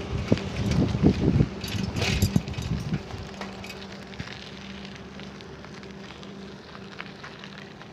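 Scattered clicks and knocks from hands-on work on a bicycle, thinning out after about three seconds, with a faint steady hum underneath.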